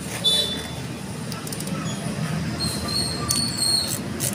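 Metal tool scraping and clicking against a motorcycle's rear drum-brake linkage, with short high squeaks near the start and again about three seconds in, over a steady low hum.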